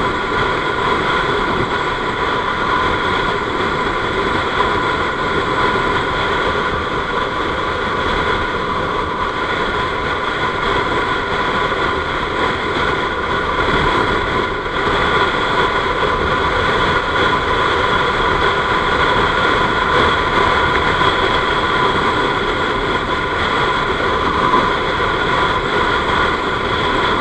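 Honda Scoopy-i single-cylinder scooter held near top speed, its engine and belt drive running with a steady whine over heavy wind rush on the microphone. Its variator bowl has been shaved and its roller weights changed for top speed.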